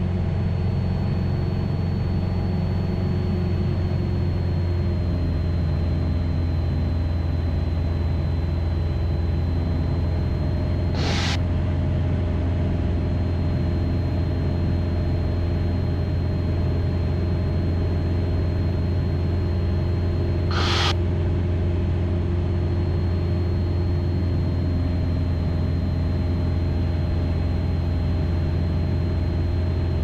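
Light aircraft's piston engine and propeller droning steadily in level cruise, heard from inside the cockpit. Two brief bursts of hiss come about a third of the way in and again about two thirds in.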